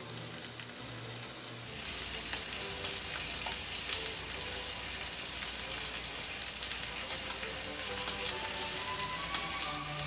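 Pork shoulder searing fat-side down in a hot, dry frying pan, sizzling steadily with a stream of small crackling pops.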